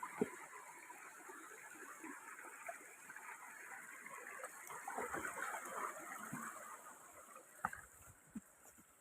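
Faint steady rush of flowing water from a jungle stream, with scattered light knocks and rustles.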